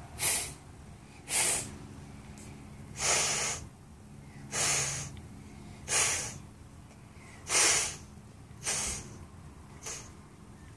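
A young child blowing through a small plastic bubble wand: eight short puffs of breath, one every second or so.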